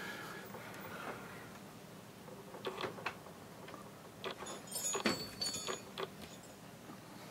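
Drawer of a Harbor Freight 44-inch steel tool chest being pulled open and pushed shut on its ball-bearing slides, giving a series of light clicks and a brief metallic jingle about five seconds in.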